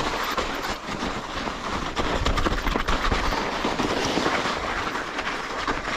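Mountain bike rolling over a rough, snowy trail: a steady rush of tyre and riding noise with many quick knocks and rattles from the bike.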